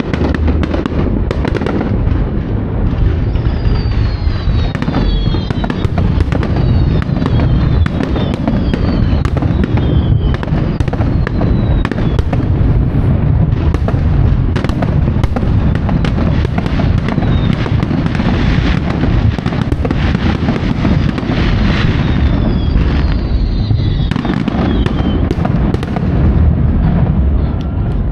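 Aerial fireworks shells bursting in a continuous barrage of booms and bangs. Whistles sliding down in pitch come through at several points, and a stretch of dense crackling comes in the latter half.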